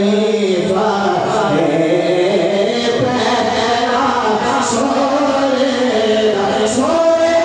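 A man singing a devotional Urdu poem in long, drawn-out melodic phrases, in the chanted style of naat recitation.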